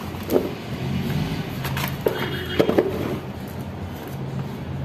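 A few short metallic clicks and scrapes as a square-taper bottom bracket cup is turned into the threaded frame shell by hand, the loudest a little past halfway. Under them runs a steady low hum like an idling motor vehicle.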